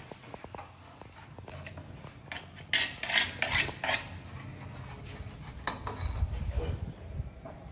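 Hard objects clinking and scraping, with a run of loud, harsh scraping strokes about three to four seconds in.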